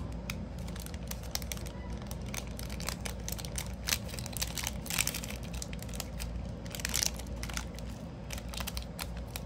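Thin clear plastic bag crinkling and crackling as a round bar of soap is slid into it and the bag is folded around it, in quick irregular rustles with louder crackles about four, five and seven seconds in. A steady low hum runs underneath.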